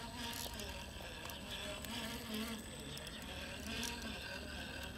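Electric motor and gear drive of an RC rock crawler whining in several short spurts, its pitch rising and falling with the throttle.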